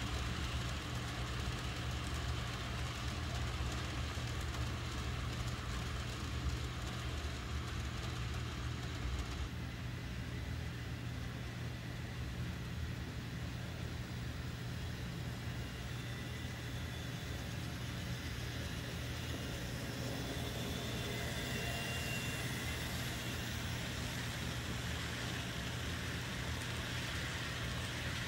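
N scale model passenger train running on the layout: a steady whir of the Kato-mechanism E8 locomotives' motors and the cars' wheels rolling on the track, over a low hum, with a faint high whine later on.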